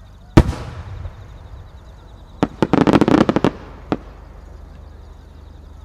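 Japanese aerial firework shell bursting with one loud boom, followed about two seconds later by a quick run of sharp cracks lasting about a second, and one last crack.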